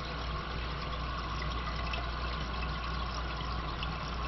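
Toilet tank fill valve running, water hissing steadily as the tank refills.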